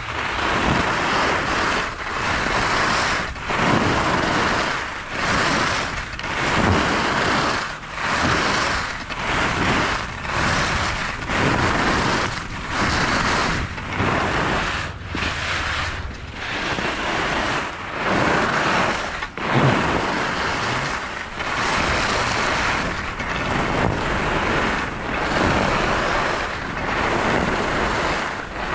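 Skis running and carving on freshly groomed corduroy snow, a loud hiss that swells and dips about once a second with each turn, mixed with wind rushing over the camera's microphone.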